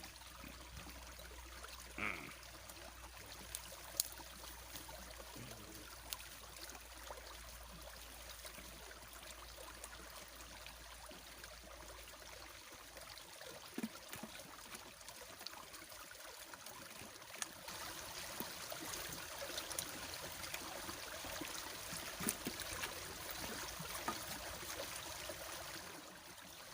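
Small stream trickling and flowing steadily, with a few faint knocks.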